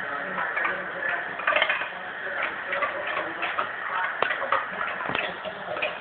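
Irregular light clicks and taps of a Great Dane on a hard kitchen floor as it noses after ice cubes, with two sharper clicks about four and five seconds in.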